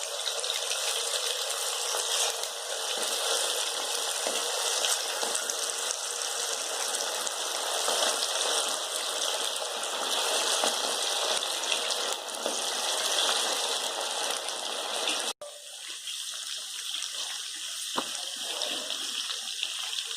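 Marinated chicken 65 pieces sizzling as they deep-fry in hot oil, a dense steady crackling hiss. About 15 seconds in it breaks off abruptly, then goes on a little quieter.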